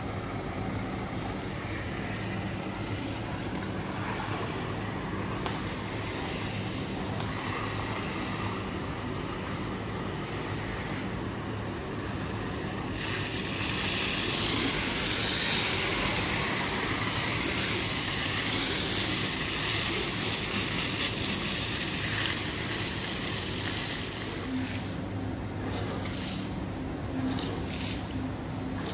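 Rug-washing work: a steady motor hum under a rushing hiss of water. The hiss grows louder about halfway through and eases off near the end.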